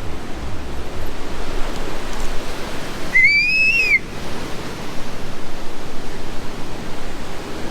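Steady rush of heavy storm surf and wind. About three seconds in comes one short whistle, under a second long, rising and then falling in pitch.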